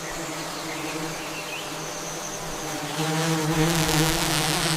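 A steady, low buzzing drone, getting louder about three seconds in.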